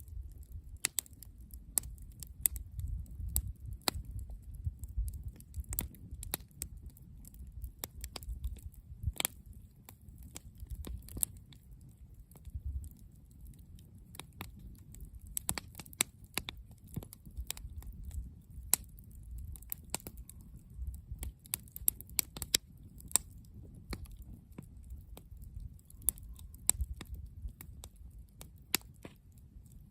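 Wood campfire crackling, with irregular sharp snaps and pops several times a second over a low rumble.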